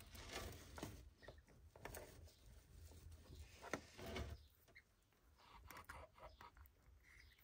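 Faint rustling and light clicks of hands handling a goose egg in a straw nest and picking at its pipped shell.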